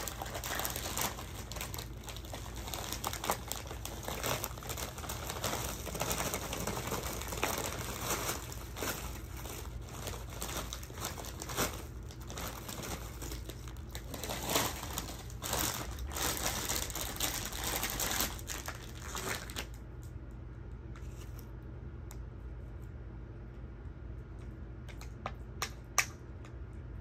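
Dense crisp crackling and crunching of tortilla chips being chewed close to the microphone. It stops about twenty seconds in, leaving a few scattered clicks.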